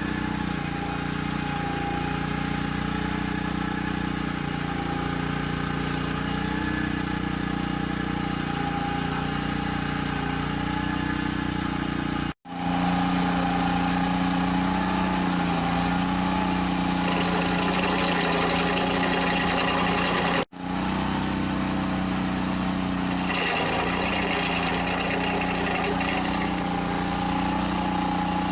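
A motor or engine running steadily at idle, a constant low hum that cuts off suddenly and resumes twice.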